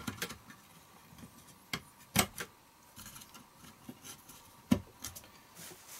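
Scattered light clicks and knocks of metal parts as a rock tumbler's sheet-metal frame and motor assembly are handled and fitted back together, with two sharper knocks, about two seconds in and near five seconds.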